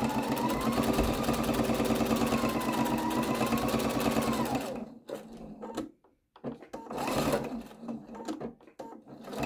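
Electric sewing machine stitching a seam through quilted fabric at a 3.0 mm stitch length, with a fast, even stitch rhythm and a motor whine that rises and falls with speed. It stops about halfway, and a few shorter machine sounds follow.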